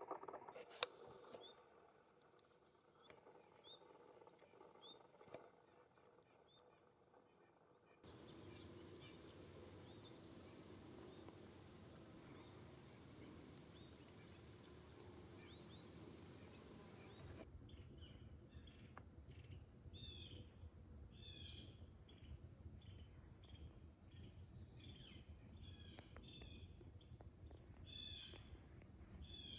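Faint woodland ambience of small songbirds giving short, scattered chirps and calls, which grow busier and more frequent in the last twelve seconds. Through the middle stretch a steady, thin, high-pitched drone sits under the birds.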